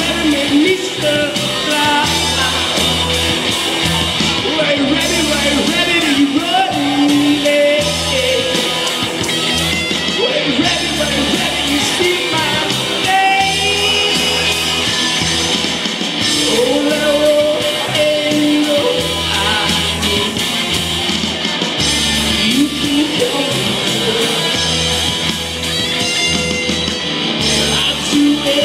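Live rock band playing loudly: electric guitars, bass and drums, with sung vocals coming and going over the music.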